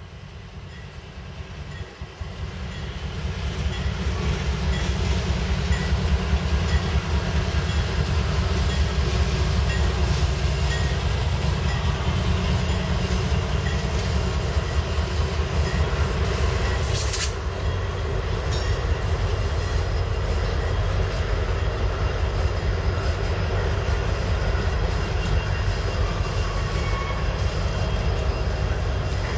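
CSX freight train passing close by: diesel-electric locomotives growing louder over the first few seconds, then the steady rumble and clatter of freight cars rolling over the rails. There is a sharp metallic clank partway through.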